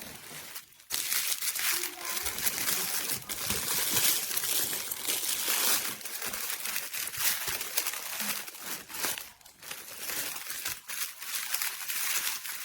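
Continuous crinkling and rustling, like material or packaging being handled, with many small crackles.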